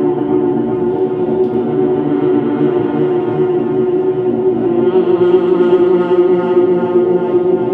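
Droning music: a sustained chord of steady held tones that swells a little louder about five seconds in.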